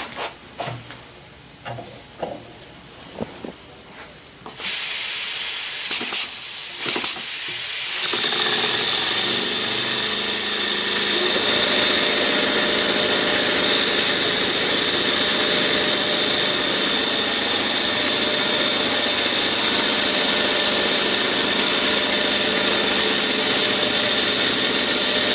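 Small model steam engine running and hissing steadily. A few light clicks come first, then the hiss starts suddenly about four and a half seconds in as the engine is opened up.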